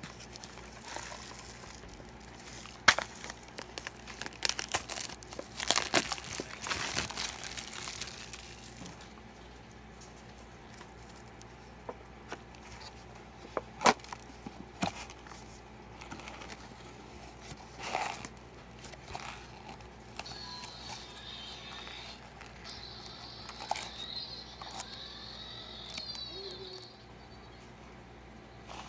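Crinkling and tearing of a cup noodle's packaging as the cup is handled and its foil-lined paper lid is peeled back, with a cluster of crackles early on, then a few sharp taps and clicks.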